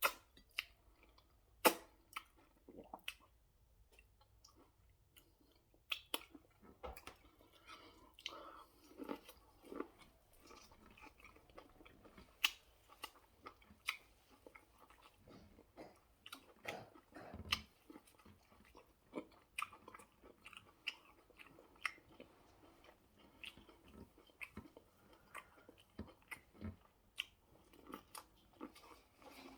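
Close-miked chewing and biting of food, with frequent irregular sharp clicks and crunches from the mouth throughout.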